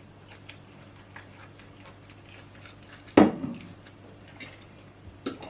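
Quiet table sounds of eating: small clinks of cutlery against a plate, with one sharper knock about three seconds in.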